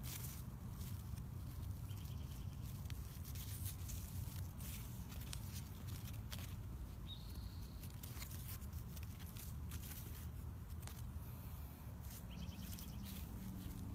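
Bush bean leaves rustling as a hand brushes through the plants, with scattered clicks and rustles from footsteps and the handheld phone, over a steady low rumble.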